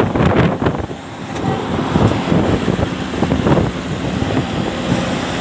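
Road vehicle noise from passing traffic, a loud uneven rush with wind buffeting the microphone.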